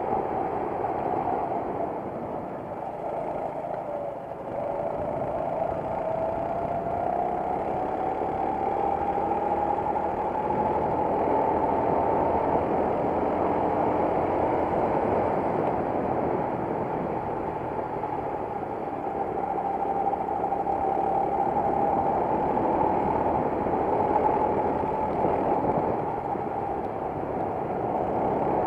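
Racing kart engine heard on board, running hard with rushing wind noise. Its pitch dips about four seconds in, then climbs steadily for several seconds as the kart accelerates, eases slightly, and holds high again near the end.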